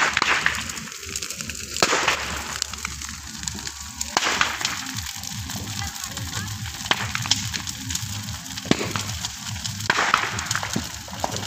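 Bonfire of dry branches and brush burning with a steady rush of flame, crackling throughout, with a few sharp loud pops every couple of seconds.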